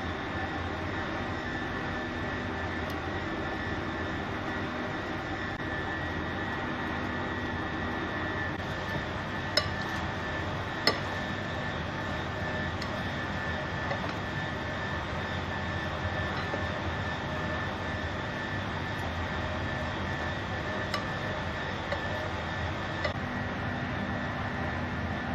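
A steady machine drone with a thin high whine, over which a few sharp clinks of a hand and salad against a glass bowl sound as the salad is tossed, the two loudest about ten and eleven seconds in.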